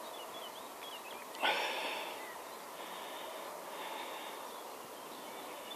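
Quiet outdoor ambience with faint bird chirps, and a brief louder noise about a second and a half in.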